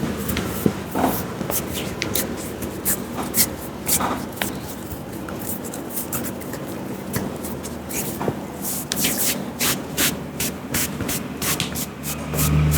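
Hands rubbing and patting on a man's head and face during an Indian head massage: a rough rubbing hiss with many short, sharp taps at irregular intervals.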